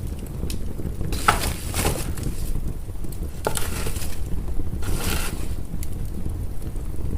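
Wood fire burning in a fireplace: a steady low rumble with scattered sharp crackles and pops, and three short hissing surges spaced a second or two apart.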